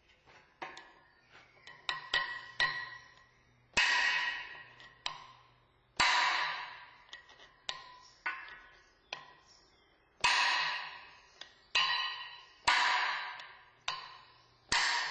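Hammer blows on a chisel driven into a drilled hole in a steel starter ring gear on a flywheel, cracking the ring so it can be sprung off. Light quick taps at first, then heavier strikes every second or two, each ringing on briefly.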